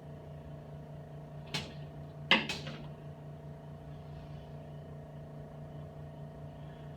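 Air compressor running with a steady hum while it builds pressure for a pneumatic chiropractic table. About a second and a half in there is a sharp clunk, and a second later a louder double clunk from the table's mechanism.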